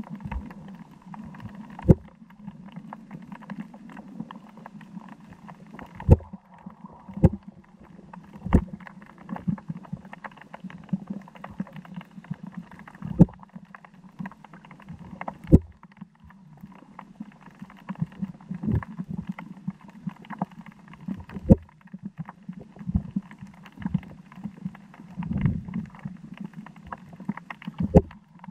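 Muffled underwater sound: a steady low rumble broken by irregular sharp cracks and knocks, several of them loud, such as urchin shells being smashed on the reef.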